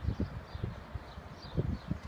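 Wind buffeting the microphone in low, irregular gusts, with a small bird repeating short, high, falling chirps about every half second.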